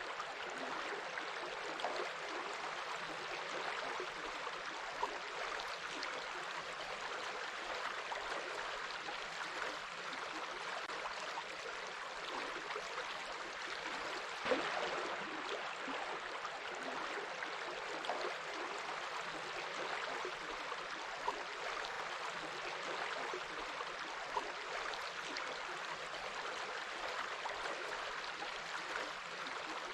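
A stream of water flowing steadily, a constant even rush with a few brief sharper splashes.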